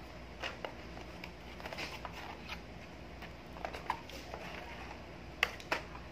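Light clicks and taps of a plastic spring airsoft pistol and its magazine being handled and lifted out of their box, with two sharper clicks near the end.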